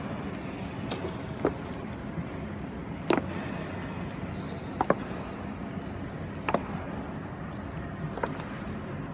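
Honour guards' boots striking a stone floor in a slow ceremonial march: single sharp footfalls about every one and a half to two seconds, one doubled near the middle, over a steady background hum.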